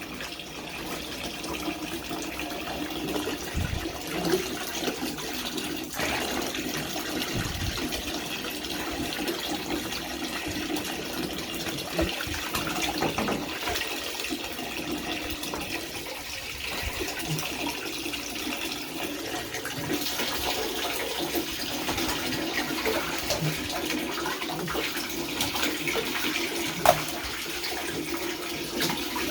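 Bathtub faucet running steadily into the tub, with scattered splashes and knocks from a puppy playing in the water, one sharper knock near the end.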